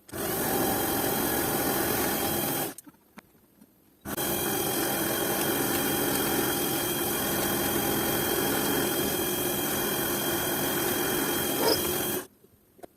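Small power tool running steadily in two runs: a short one of about two and a half seconds, then a pause of about a second and a half, then a longer one of about eight seconds. Each starts and stops abruptly.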